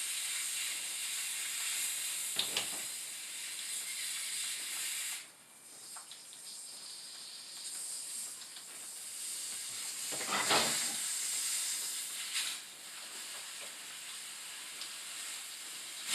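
Pressurised water hissing as it sprays from a punctured water supply line behind a shower wall. It drops away for a few seconds about five seconds in, then comes back, with a couple of short knocks.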